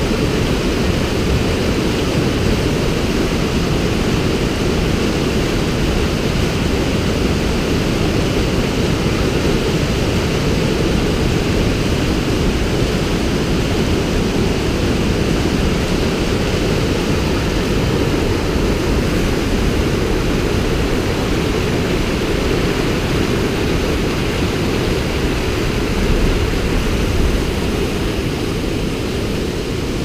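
Whitewater river rapids rushing over rocks, a loud, steady, deep rush of water with no breaks.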